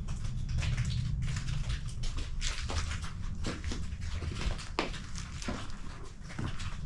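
Footsteps crunching on loose ground: irregular short crackles and clicks over a steady low rumble.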